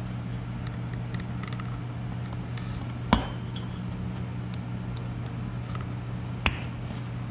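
Small clicks and knocks of hands working at a Yamaha Kodiak 700 ATV's plastic body panels and their fasteners, with a sharper knock about three seconds in and another near six and a half seconds, over a steady low hum.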